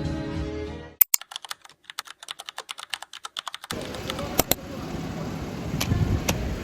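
Guitar music fades out, then for about two and a half seconds there is fast keyboard typing, a quick run of sharp clicks. About halfway through, a steady background noise takes over, with a few scattered clicks.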